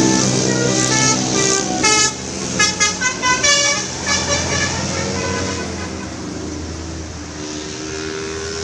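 Tour bus's telolet basuri musical horn playing a quick tune of short, rapid notes over the bus's running engine. The horn stops about four and a half seconds in, leaving the engine sound.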